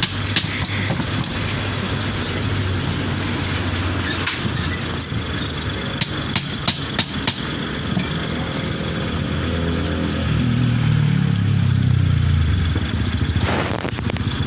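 An engine running steadily, swelling louder for a couple of seconds about ten seconds in, with a few sharp clicks around six to seven seconds in.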